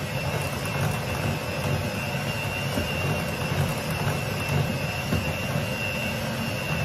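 Electric hand mixer running steadily, its beaters whisking batter in a glass bowl, with a steady high motor whine over the churning.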